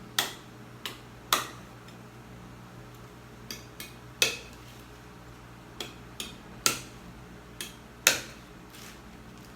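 Knife chopping pork on a chopping board: about eleven sharp, irregular chops, some in quick pairs and four of them heavier.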